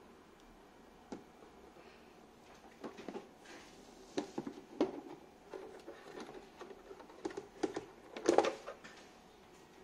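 Plastic parts and plastic wrap being handled: scattered light clicks, taps and rustles, with a louder burst of rustling and clatter a little after eight seconds in.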